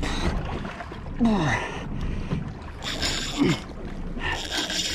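Wind and water noise aboard a small fishing boat while an angler cranks a conventional reel against a fish. There are short, strained grunts about a second in and again past three seconds, and a wash of noise grows louder near the end.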